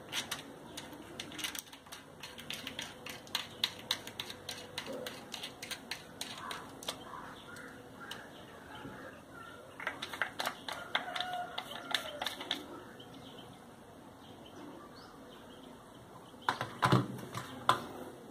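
Quick plastic clicks and taps from handling a mini grinder (rotary tool) as its nose cap is unscrewed and small accessories are moved about, with birds chirping in the background. Near the end come louder knocks and rustling as the flexible shaft attachment is picked up.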